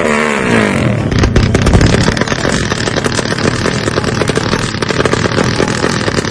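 Two-stroke drag-race motorcycle engine revving hard while the bike is held at the start line. It makes a fast, rattling run of exhaust pulses.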